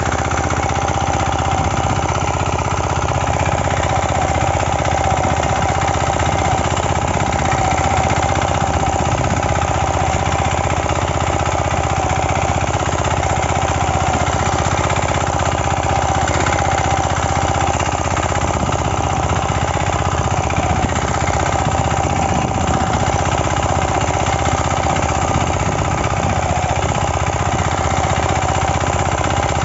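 6 HP single-cylinder diesel engine of a Kisankraft power weeder running steadily under load as its tines cultivate the soil, a fast even clatter.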